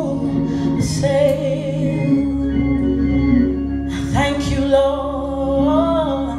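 A woman sings a gospel worship song into a microphone over held organ chords from a keyboard. A deep bass note comes in about two seconds in, and her voice rises into a new sung phrase about four seconds in.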